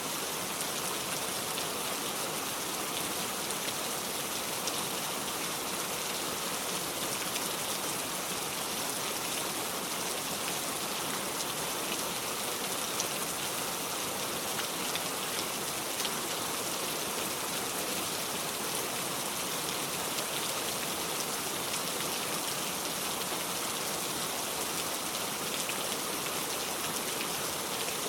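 Steady rain falling on a surface, a continuous even hiss full of fine drop ticks.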